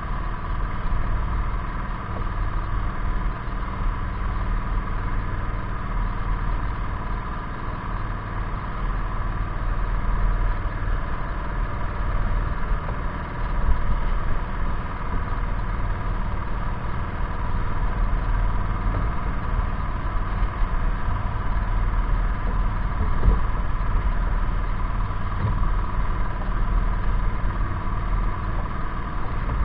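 An engine running steadily at a constant speed, a continuous low hum.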